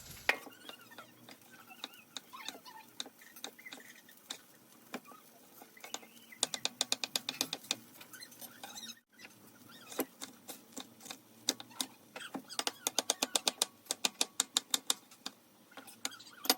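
Knife chopping on a cutting board: scattered single strokes, then two quick runs of about eight chops a second.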